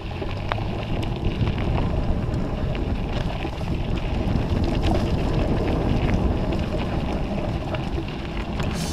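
Wind buffeting the microphone over a steady low rumble, with scattered small clicks and rattles, from a summer dog sled rolling along the trail behind its team.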